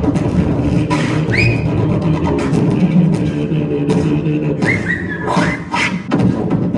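Beatboxing: a low hummed bass line under mouth-made percussion, with quick rising vocal glides about a second in and again around five seconds. Near the end it moves into a steadier, more regular beat.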